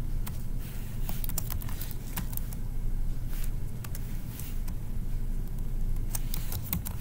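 Computer keyboard being typed on slowly: scattered single key clicks over a steady low hum.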